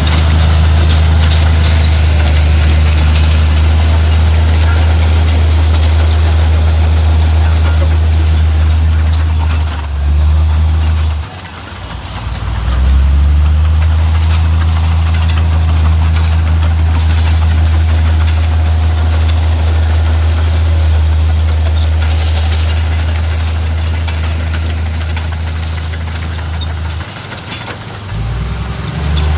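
Heavy earthmoving machine's diesel engine running steadily and loud. Its note drops and the sound eases off about eleven seconds in, then picks back up sharply; it eases off again briefly near the end.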